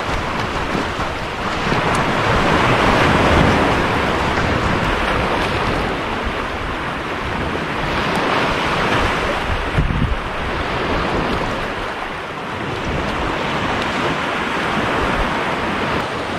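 Ocean surf washing onto the beach, swelling and easing every few seconds, with wind rumbling on the microphone.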